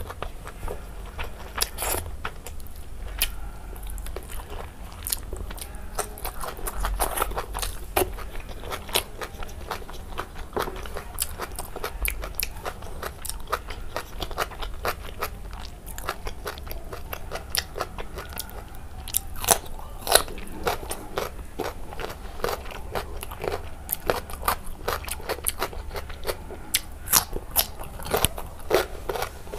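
Close-miked chewing and crunching: a person eating by hand, with crisp wet bites of raw cucumber and okra among mouthfuls of rice and pork curry. There are many short crackly crunches throughout, a few louder ones near the end.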